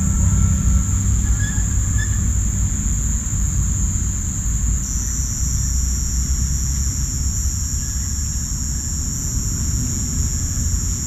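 Crickets and cicadas calling in a loud, steady, high-pitched chorus; about five seconds in the pitch drops slightly and a second, higher band sets in. A steady low rumble runs underneath.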